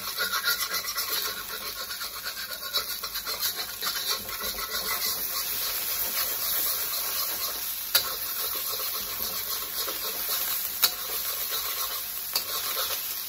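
An egg and tofu sizzling in a hot steel wok while a metal spatula scrapes and stirs across the pan, with a couple of sharp clicks as the spatula knocks the wok.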